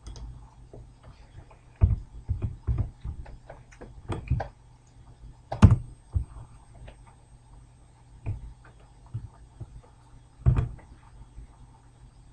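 Scattered computer keystrokes and mouse clicks, several landing as dull thumps, at irregular intervals over a faint steady low hum.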